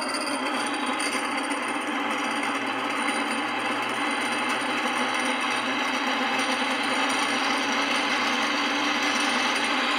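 Old Miller spin dryer's motor running on a test capacitor wired directly to the mains, giving a steady, noisy mechanical running sound that grows slowly louder.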